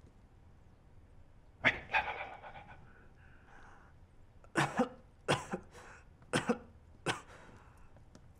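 A man in bed coughing about five times in short bouts, the first a little under two seconds in and the rest close together from about the middle on. The coughs are put on to make him seem ill with a chill.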